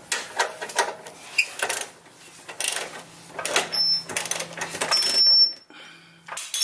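Irregular metal clicks and scrapes as a rusty shock bolt is wiggled and worked out of a Jeep Wrangler JK's rear shock mount, loudest about five seconds in.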